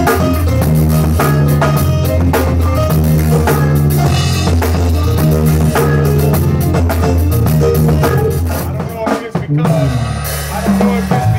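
A gospel band rehearsing an instrumental passage: a drum kit keeps a steady beat over a bass line. Near the end the band briefly drops out, then the drums pick back up.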